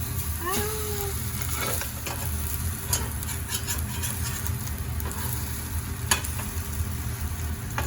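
Food sizzling in a frying pan, with a few sharp clicks or knocks against the pan, the loudest about six seconds in.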